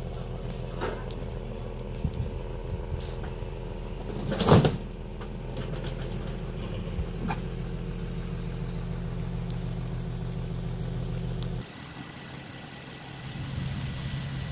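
Engine idling steadily as a 2014 Nissan 370Z rolls down the steel loading ramps of a car-hauler trailer, with one loud clunk about four and a half seconds in. After a cut near the end, the 370Z's 3.7-litre V6 idling under the open hood.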